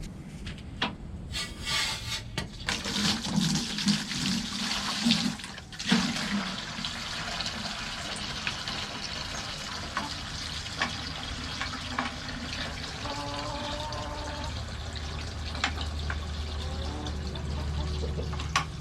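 Water running into a bucket, filling it, with a few knocks against the bucket over the first several seconds.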